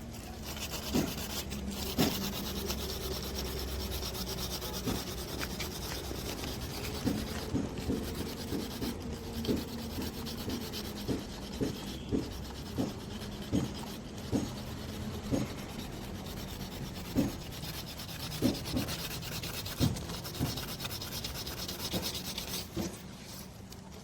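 Sanding dried body putty on a vehicle's body panel to level it before primer: a steady scratchy rasp with short strokes recurring every half second to a second.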